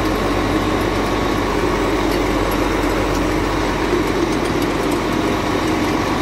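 Cat 966H wheel loader's diesel engine idling steadily, heard up close from beside the machine's frame and axle.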